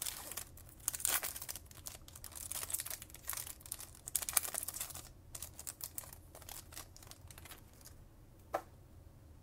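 Foil wrapper of a Topps Chrome baseball card pack crinkling and tearing as it is ripped open and peeled off the cards, dying down after about seven seconds, with one short tap near the end.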